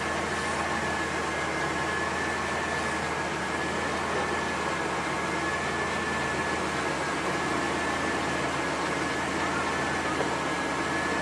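Steady hiss with a thin, constant high-pitched whine and a low hum underneath, unchanging throughout.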